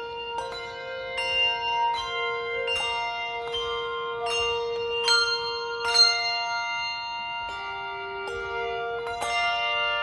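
Handbell choir ringing a slow tune: single handbells struck about once a second, each note ringing on and overlapping the next. The loudest strike comes about six seconds in, and several bells sound together as a chord a little after nine seconds.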